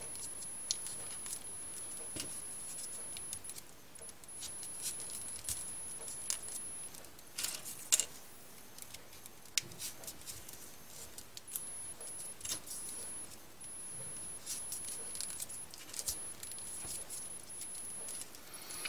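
Folded paper units of modular 3D origami being pushed onto the model by hand: irregular light paper rustles and small clicks, with a slightly louder rustle about eight seconds in.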